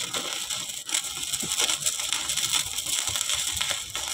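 Stick-welding arc from a portable inverter welder, crackling steadily as the electrode burns against steel. The arc is holding, a sign the repaired welder is working normally.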